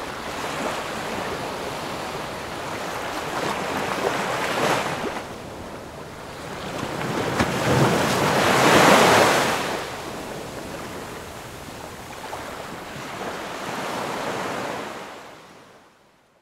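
Ocean surf: waves breaking and washing in, the noise swelling and ebbing over several seconds. The biggest swell comes just past the middle, and the sound fades out near the end.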